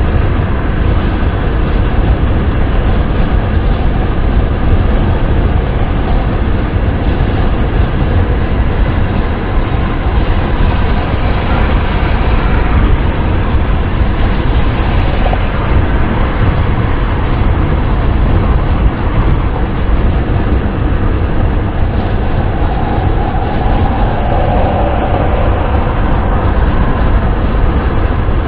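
Steady wind noise of a car being driven, an even rushing hiss over a deep low rumble, with no breaks or changes.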